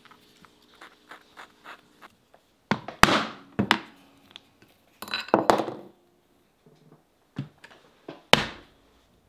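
Mallet blows on a metal hole punch going through leather into a cutting board: about six sharp strikes at uneven intervals, each ringing briefly, with the loudest about three seconds in and another near the end. Faint taps and clicks come before them in the first two seconds.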